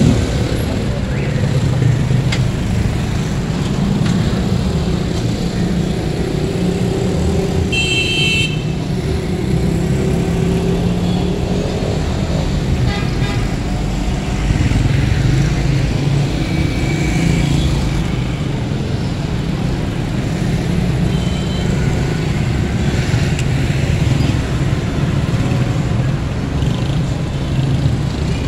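Busy street traffic: motorcycle and car engines running close by in a steady dense rumble, with a vehicle horn sounding briefly about eight seconds in.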